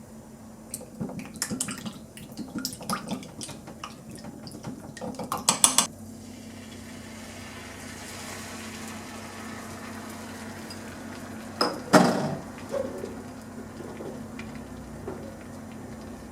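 Dishes and cutlery clinking and knocking in a kitchen: a run of clicks and knocks over the first six seconds ending in a quick rattle, then a single loud knock about twelve seconds in, over a low steady hum.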